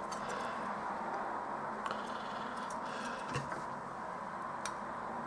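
A few faint, small clicks and handling sounds from fitting a through-hole choke into a circuit board, over a steady background hiss.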